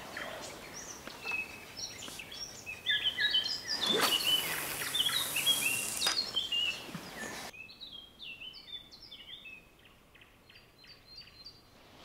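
Songbirds singing: repeated short, chirping phrases from several birds. In the middle a louder rushing noise swells and cuts off suddenly, after which the birdsong goes on more faintly.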